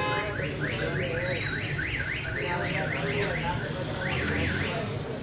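Electronic siren of the car-alarm kind: a rising whoop repeated about three times a second, pausing briefly near the end before two more whoops. A low rumble runs underneath.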